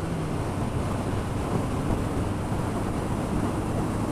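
Motorcycle riding at a steady cruise: wind rushing over the camera's microphone, with the engine's steady drone underneath.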